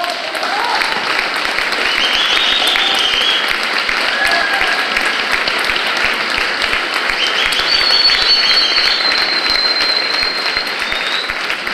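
Audience applauding: steady, dense clapping from many hands, which starts as the reading ends.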